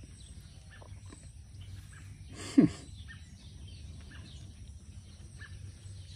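Scattered short bird chirps over a low outdoor background hum, broken about two and a half seconds in by one short, loud sound that falls in pitch.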